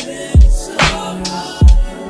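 Background hip hop music with a slow beat: a deep kick drum twice, a sharp snare-like hit between them, over held chords.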